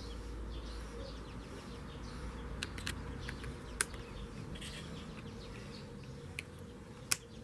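A few sharp clicks and taps from the plastic electric grinder being handled and assembled, over a low steady background hum.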